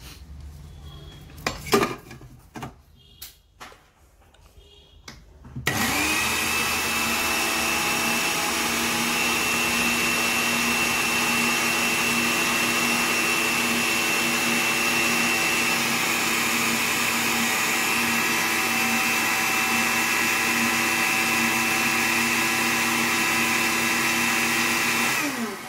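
Usha electric spice grinder, a small mixie, running steadily for about twenty seconds as it grinds already coarse-ground dried neem leaves to a fine powder. It starts suddenly about six seconds in and winds down with a falling pitch near the end. Before it starts there are a few knocks and clicks as the jar is set and pressed down on its base.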